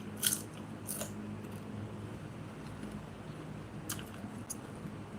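Eating sounds: a few short, sharp crunches or clicks, about four in all, over a low steady hum.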